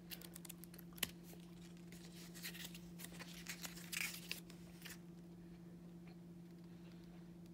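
Paper pages of a guidebook being leafed through: a run of light rustles and flicks over the first five seconds, loudest about four seconds in. After that only a steady low hum remains.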